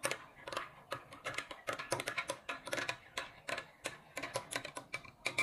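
A spoon stirring coffee in a ceramic cup, clinking against the cup's sides in rapid, irregular clicks.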